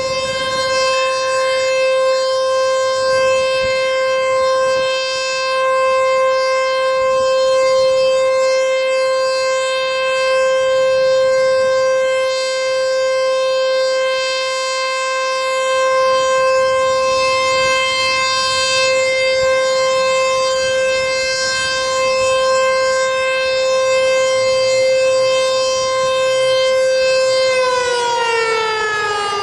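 American Signal T-121 outdoor warning siren sounding its steady alert tone, one held pitch whose loudness swells and fades every few seconds. Near the end the pitch begins to fall.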